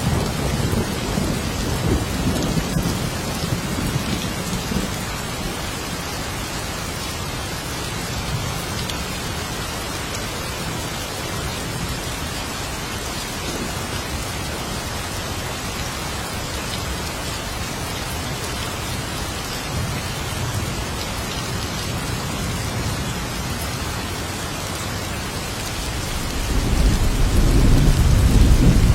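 Steady heavy rain with rolling thunder: a low rumble fading over the first few seconds, then rain alone, and a louder peal of thunder building near the end.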